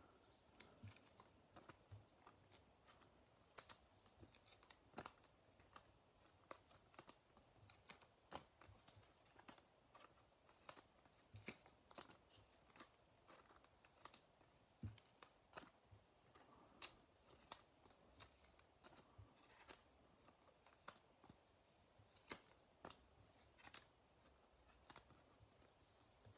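Faint, irregular clicks and taps of stiff trading cards being handled, slid against each other and set down on a table mat.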